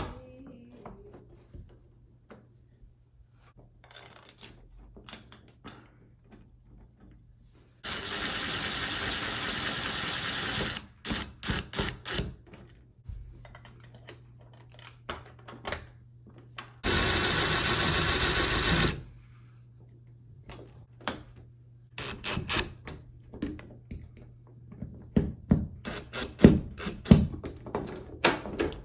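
Small metal clicks, taps and knocks of door-knob hardware being fitted with a screwdriver, coming thick and fast near the end. Twice, about eight and seventeen seconds in, a loud steady rushing noise runs for about two seconds and cuts off.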